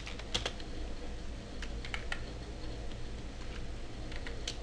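Computer keyboard keystrokes: a handful of scattered, irregular key clicks over a low steady background hum.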